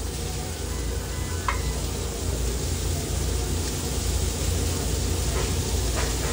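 Raw hamburger patties frying on a flat-top griddle: a steady sizzle over a low hum, with a few light spatula clicks against the griddle.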